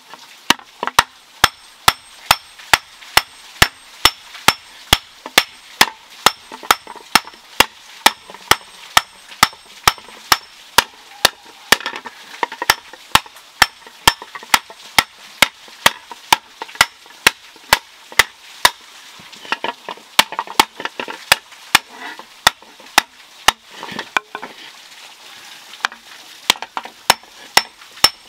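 A hammer forging a red-hot iron disc into a pan on a stone anvil, sharp blows at a steady rhythm of about two and a half strikes a second, each with a light metallic ring.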